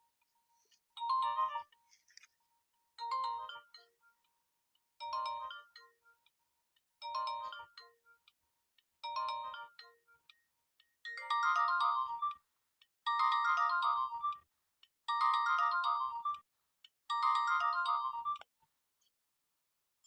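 Nokia 1600 mobile phone ringtone playing: a short electronic melody that repeats every two seconds, and from about eleven seconds in the phrases run longer and louder.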